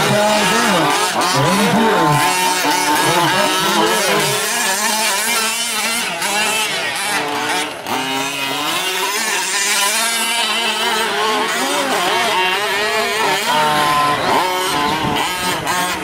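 Several 5th-scale gas RC trucks' small two-stroke engines racing together, their pitches overlapping and rising and falling as they rev up and back off.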